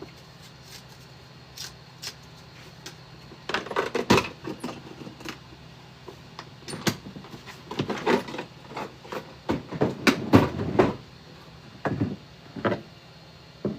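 Irregular knocks, clicks and clatter of hard objects being handled, in clusters about four seconds in and again from about eight to eleven seconds.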